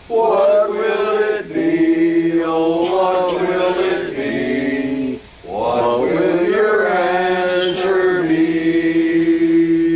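Congregation singing a hymn a cappella, several voices together holding long notes, with a short breath break about five seconds in.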